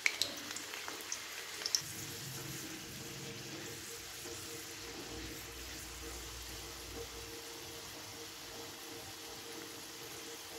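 Garlic cloves sizzling in hot oil in an aluminium kadhai, browning for a tadka. A few sharp crackles in the first couple of seconds, then a faint, steady sizzle.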